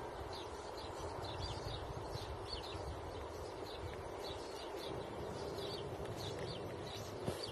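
Small birds chirping in the dawn chorus: short high notes repeated a couple of times a second, over a steady low background hum.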